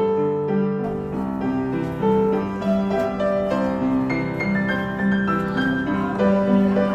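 Background music: a piano melody with sustained notes.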